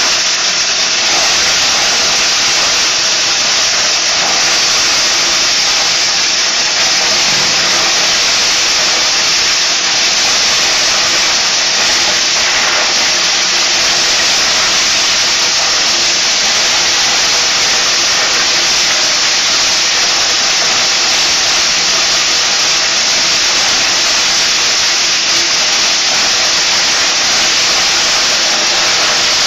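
Two-inlet belt-driven corn sheller running steadily while cobs are fed through it and shelled, giving a loud, even rushing whir with a faint hum underneath.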